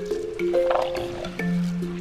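Background music: a simple melody of held notes stepping up and down over a steady low note.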